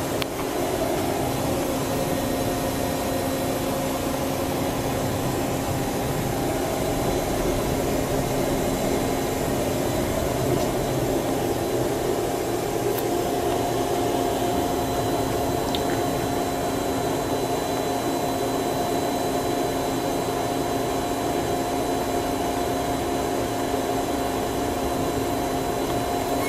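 Steady mechanical hum with a few held tones from a powered-up Star SR-20 CNC Swiss-type automatic lathe, running without any cutting or impact sounds.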